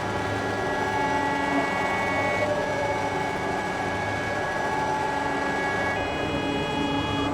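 Make Noise modular synthesizer playing a dense drone: sustained tones over a noisy wash. The held tones move to new pitches about two and a half seconds in, and higher ones enter near the end.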